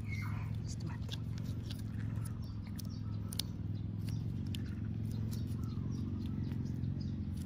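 A black stray cat crunching dry kibble off the ground, a scatter of small sharp crunches and clicks. Under it runs a steady low hum.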